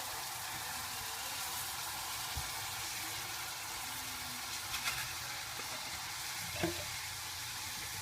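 Onion, garlic and paprika frying in oil in a pan, a steady sizzle, with a couple of faint clicks about five and six and a half seconds in.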